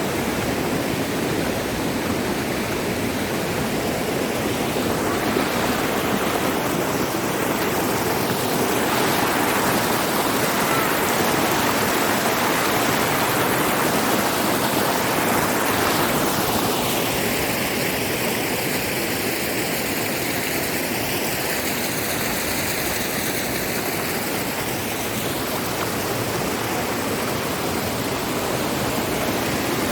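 Loud, steady rush of fast-flowing water, with a hollow, slowly sweeping tone in the hiss for several seconds past the middle.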